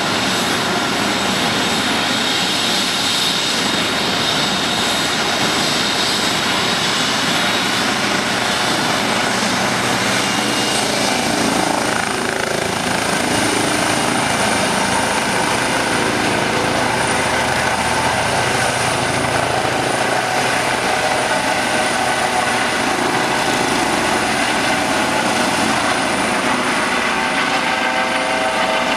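Eurocopter EC135 helicopter's twin turbines and rotors running at takeoff power as it lifts off and climbs away overhead. A high turbine whine rises a little in pitch about twelve seconds in.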